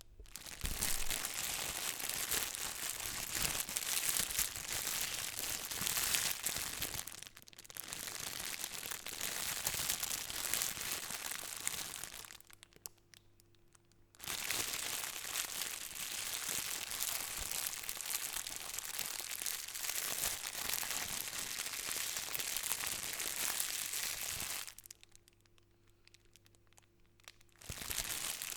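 Plastic bag crinkling and rustling as it is handled, in several long stretches broken by short quiet pauses.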